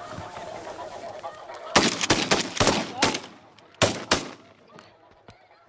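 A rapid volley of shotgun blasts from several hunters, about seven shots in two and a half seconds, beginning about a second and a half in. Snow geese honk before the shooting starts.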